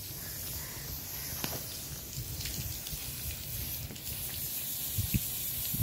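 Garden hose spraying a fine jet of water over rooftop solar panels to wash them: a steady hiss of spray, with a few faint clicks.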